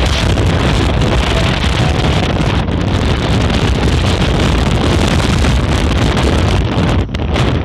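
Strong wind buffeting the microphone of a rider on a moving scooter, a steady rushing noise heaviest in the low range.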